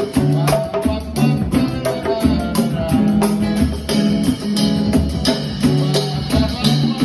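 Upbeat Brazilian song with bass, guitar and steady hand percussion such as tambourine, with some singing.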